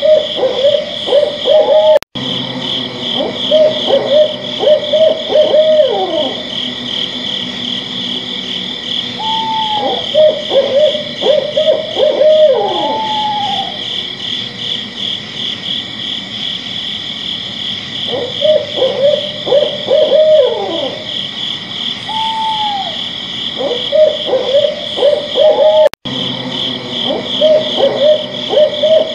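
Owl hooting in runs of short notes, some with a falling glide, repeating every few seconds, over a steady, fast-pulsing high chorus. The sound cuts out for an instant twice.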